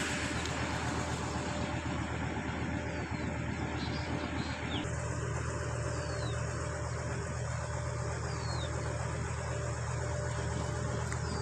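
An engine running at a steady idle, a constant low hum. A bird gives a short falling whistle call about every two to three seconds over it.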